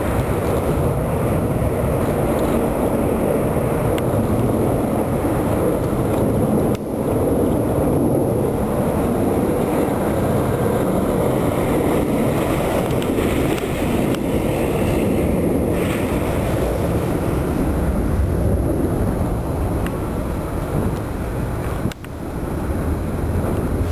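Boeing 747 jet airliner passing overhead, its four jet engines giving a steady, loud rushing noise.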